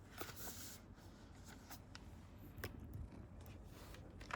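Quiet room with faint rustling and a few light, scattered clicks of small objects being handled.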